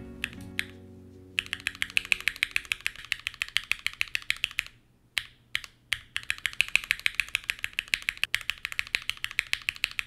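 Fast typing on a modded Gamakay K66 mechanical keyboard with lubed linear Gateron Red switches, fitted with cherry-profile keycaps: two runs of rapid keystrokes with a short pause and a few lone key presses about five seconds in. A guitar music tail fades out during the first second.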